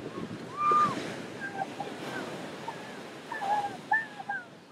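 Ocean surf washing in, with a string of short high-pitched calls over it, the loudest about a second in and another near the end.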